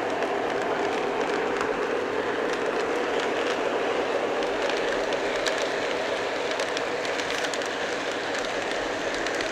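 Model train running on its track: a steady motor and gear hum with the wheels clicking over the rails.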